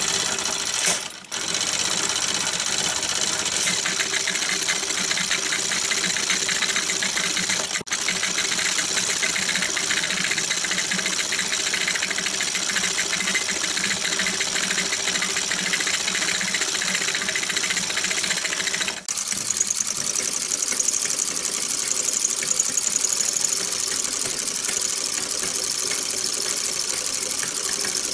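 1920s Pathé 9.5mm home-movie projector running, its film mechanism chattering rapidly and steadily, with three very short breaks.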